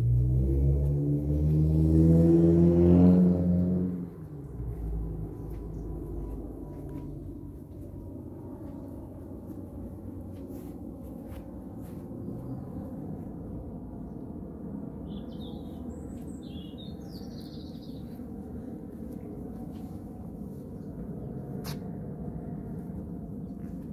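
Outdoor garden ambience: a steady low rumble with a few short bird chirps about fifteen seconds in. It opens with a loud low drone of several held tones that swells and then stops abruptly about four seconds in.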